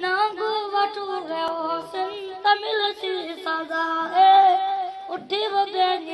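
A boy singing a devotional Urdu/Punjabi nazam about prayer in a high voice, with no instruments, holding and bending long notes.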